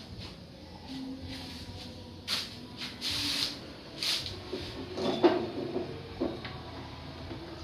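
Tools and metal parts knocking and scraping as a mechanic works at a car's gearbox from underneath. There are a few separate clunks and scrapes, the loudest about five seconds in.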